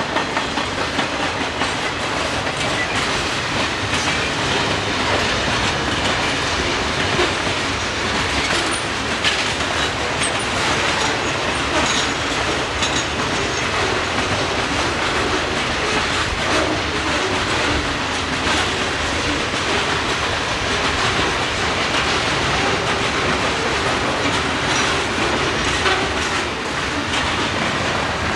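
Freight train cars rolling past, a steady rumble with the clickety-clack of wheels over the rail joints.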